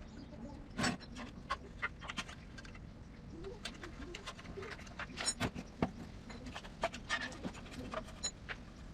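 Irregular light clicks and taps of hard objects knocking, a dozen or more spread unevenly over several seconds, over a low steady background.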